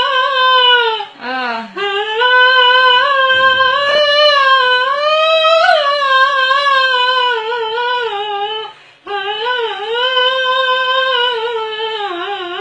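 A girl singing in a high voice, drawing out long wavering notes with a slow wobble in pitch, pausing briefly about a second in and again about nine seconds in.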